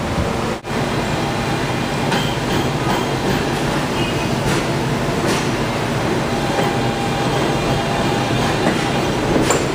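New York City Subway N train pulling into an elevated station: a steady rumble of wheels on the track, with sharp clicks now and then as they cross rail joints.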